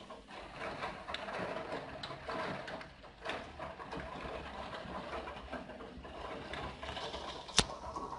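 Rain pattering on a window and its sill, with many small ticks of drops striking. One sharp click about seven and a half seconds in.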